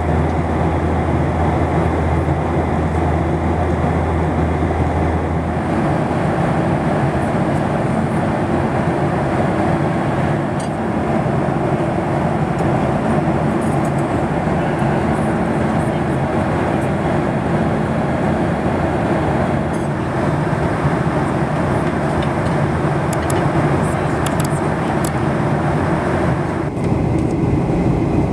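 Steady jet airliner noise, a constant rumble and rush of engines and airflow, with a low hum that stops about five seconds in and a change in the noise near the end.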